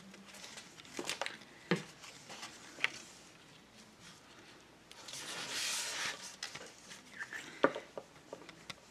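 Paper being handled and pressed down by hand on a tabletop: a soft rustle about five seconds in, with a few light taps and clicks.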